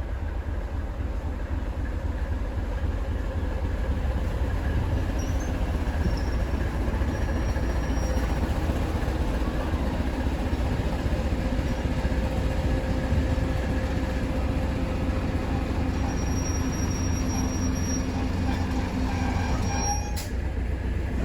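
A train running on rails: a steady rumble of wheels and running gear, with faint, brief high-pitched wheel squeals now and then.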